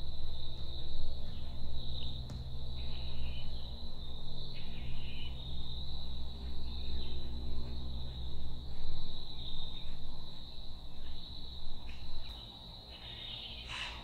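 Steady, high-pitched chirring of crickets in the woods, over a low rumble that drops away near the end.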